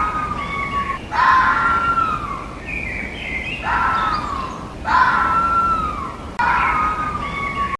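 Fox howling: a series of wavering cries that fall in pitch, each about a second long, repeating about every second and a half over a steady background hiss.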